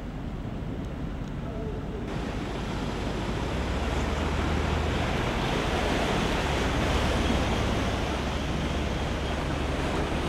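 Water rushing and splashing as a vehicle drives through floodwater, over the low steady run of its engine, with wind buffeting the microphone. The rush of water grows louder about two seconds in.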